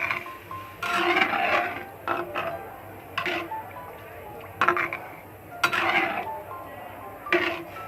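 Cooking utensil scraping and clinking against a pot of simmering food in short, irregular strokes, over faint background music.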